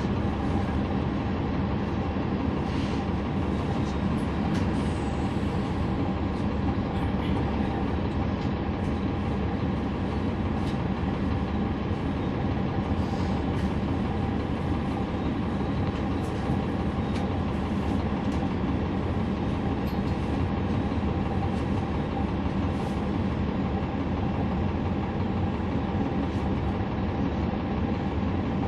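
Inside a NABI 40-SFW transit bus with a Cummins ISL9 diesel engine, running with a steady drone and rumble, with a few light clicks and rattles now and then.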